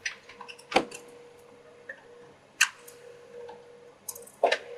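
Four sharp clicks and taps of small hand tools being handled and set down on a workbench, the first the loudest, over a faint steady hum.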